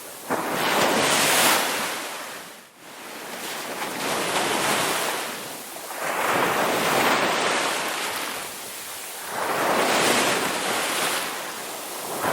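Sea waves breaking and washing up a beach, the surf rising and falling in about four surges a few seconds apart.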